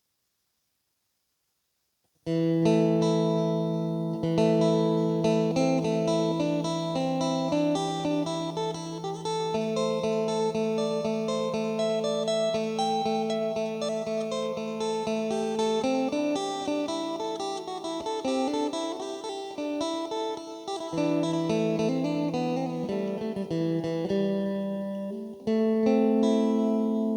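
Electric phin with a pradu-wood body being played. About two seconds in, a quick plucked melody starts over a held low drone note.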